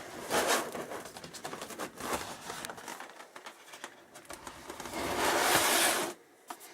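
Cardboard box and its packaging being handled and opened by hand: irregular rustling, scraping and crinkling with small clicks, and a louder rustle lasting about a second near the end.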